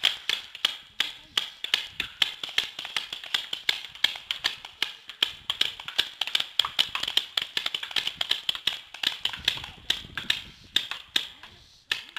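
Paintball markers firing in a speedball game: rapid, irregular pops, several a second, from more than one gun trading shots, thinning out and stopping just before the end.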